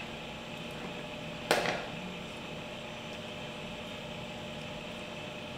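Steady mechanical hum of room noise, with a single sharp clink of a metal spoon against the plate about a second and a half in.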